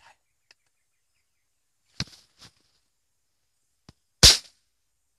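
A silenced rifle fired at birds, with the sharp clicks and knocks of the gun being handled: a sharp click about two seconds in, and the loudest, a short burst, a little after four seconds.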